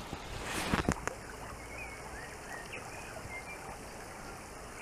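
Fast, shallow small river running over gravel, a steady rush of water. There are a few brief thumps just under a second in and faint small bird chirps in the middle.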